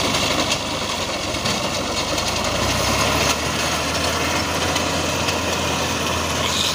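Tractor engine running steadily under load, with a low hum, as its mounted reaper cuts standing wheat.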